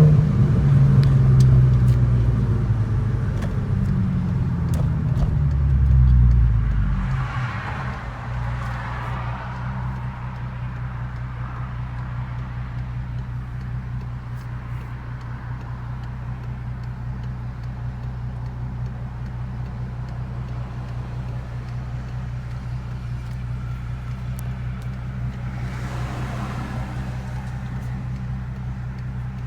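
Volkswagen Golf R32's 3.2-litre VR6 engine pulling under throttle, its revs falling away about seven seconds in, then running steadily at low revs with an even hum. A brief swell of noise comes near the end.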